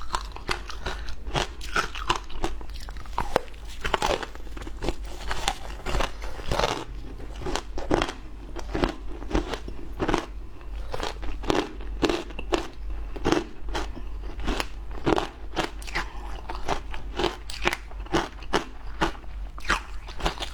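Close-up crunching and chewing of frozen flavoured ice: a steady run of sharp, crisp crunches at about three a second.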